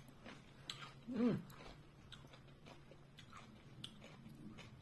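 Faint chewing of a sour dill pickle, with small mouth clicks scattered through. About a second in, a short closed-mouth "mmm" whose pitch rises and then falls.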